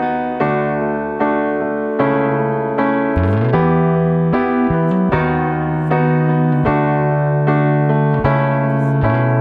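Background music: electric piano chords struck about every half second to a second over a held bass line.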